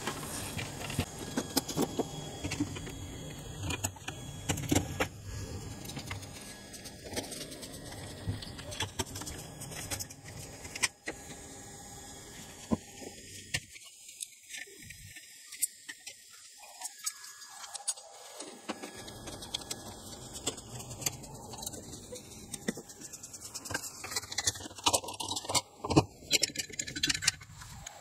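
Irregular small metallic clicks and clinks of screws, a screwdriver and a sheet-metal cover being handled as a UPS is opened up.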